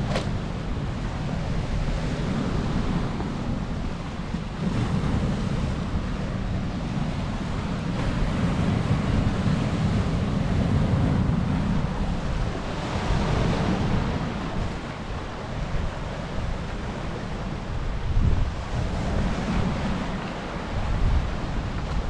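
Surf breaking and washing over a rocky shore of boulders and cobbles, the noise swelling and easing as waves come in, with a strong low rumble of wind buffeting the microphone.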